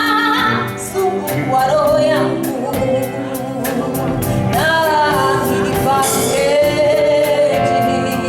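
Live band playing with a singer, the voice gliding between held notes over sustained instruments and a steady cymbal beat.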